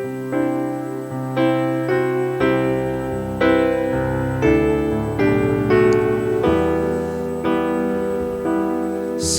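Piano-sounding keyboard playing the slow introduction to a worship song: sustained chords, a new one struck about once a second.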